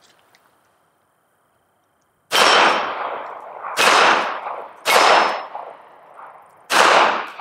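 Smith & Wesson J-frame revolver fired four times, starting about two seconds in, at uneven intervals of one to two seconds. Each shot is a sharp crack followed by a long echo dying away.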